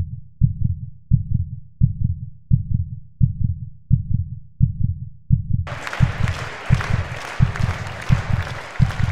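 Muffled bass-drum beat of the backing music with only its low end heard, a steady thud about two times a second. A little past halfway, a wide hissing noise comes in over the beat.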